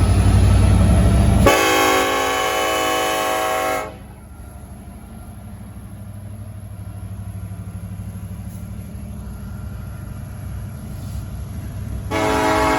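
Diesel locomotive air horn blowing one steady chord for about two seconds, after a second of loud rumble. The locomotive then runs on under a low steady hum, and the horn sounds again near the end.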